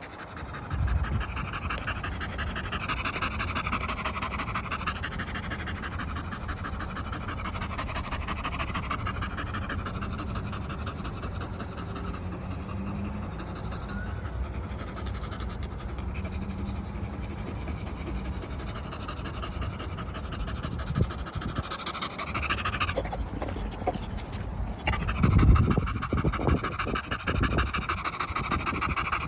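Dog panting fast up close, a quick, even run of short breaths in and out. Near the end the panting breaks off for a moment and a loud, low thump-and-rumble comes before the breathing picks up again.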